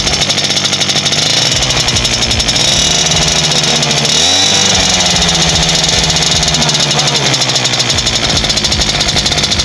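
Romet Pony moped's small two-stroke engine running, heard right at the exhaust silencer, a rapid buzzing firing that rises a little in pitch about four seconds in.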